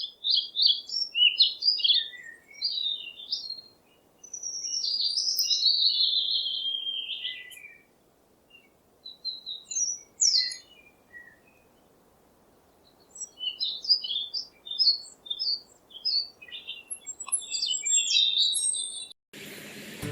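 Wild birds singing and calling in bursts of quick chirps and warbles, with short silent gaps; a longer warbling phrase that falls in pitch comes about four seconds in.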